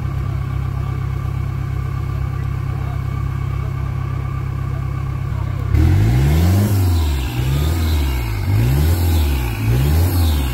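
Off-road pickup's engine holding a steady speed, then from about six seconds in revving hard again and again, each rev climbing and dropping in about a second, as the truck strains to drive out of a deep mud pit.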